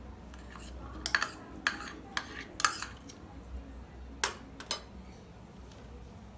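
A small steel bowl and spoon clinking against a glass mixing bowl as crushed garlic is tipped and scraped onto chopped raw mango. About six short, sharp clinks come over the first five seconds.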